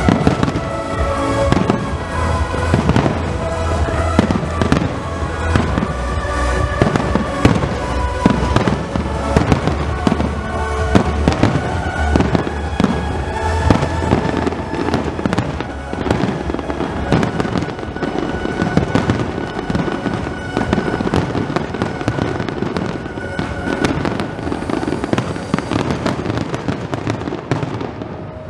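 Aerial firework shells bursting in a rapid, unbroken barrage, the closing salvo of a pyromusical show, with its music playing under the bangs. The bursts die away just at the end.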